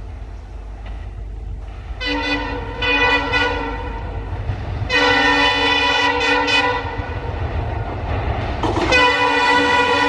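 WDG4 diesel locomotive sounding its horn, several notes at once, as it approaches: a few short toots about two seconds in, a longer blast about five seconds in, and another blast starting near the end, over the low rumble of the diesel engine.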